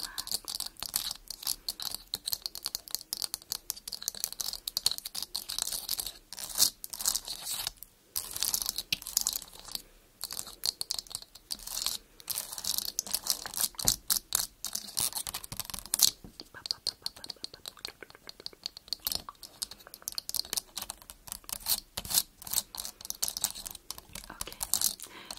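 Long fingernails tapping and scratching quickly on a camera lens: a dense run of crisp clicks and scratches with short pauses.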